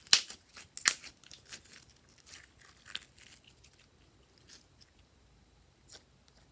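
Blue glitter slime squeezed and stretched in the hands, giving a run of sticky popping and crackling clicks. The two loudest pops come within the first second, the clicks thin out after about three seconds, and one more pop comes near the end.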